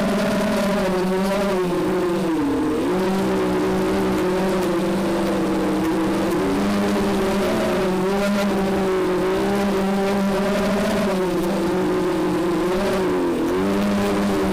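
Small FPV quadcopter's brushless motors and propellers whining, heard from a camera mounted on the frame. The pitch wavers with throttle and dips sharply twice, once about two and a half seconds in and again near the end.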